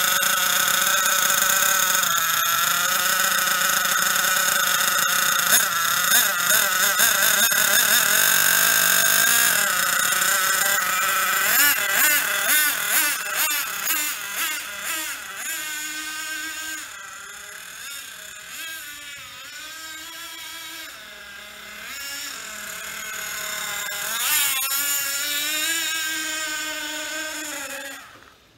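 Hobao Hyper 7 TQ nitro buggy's Hyper 21 three-port glow engine, freshly repinched and with its missing aluminium head shim added. It runs loud and steady at first, then revs up and down in quick bursts as the buggy drives away, growing fainter with distance. It revs again near the end, then cuts off suddenly.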